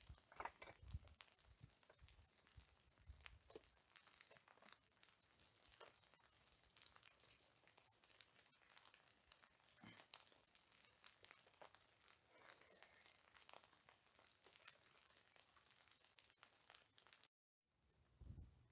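Near silence: faint scattered clicks and rustling over a steady high hiss, with a brief dropout near the end.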